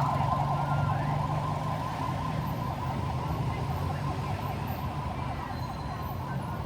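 Ambulance siren sounding a fast warble, its loudness slowly easing off, with a low steady hum underneath.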